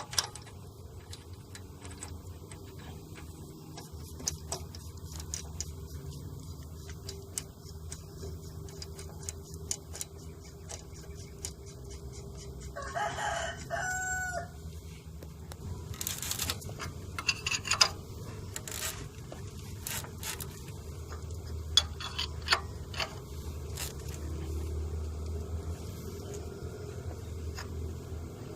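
A rooster crows once, about halfway through, over scattered clicks and knocks and a steady low rumble.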